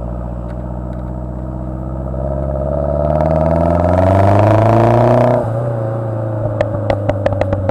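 2010 Mazdaspeed3's turbocharged 2.3-litre four-cylinder through an Xforce turbo-back exhaust. The revs climb steadily for about three seconds, then the throttle shuts. About a second later a rapid string of sharp pops and crackles starts on the overrun, from a tune with pops and crackles enabled.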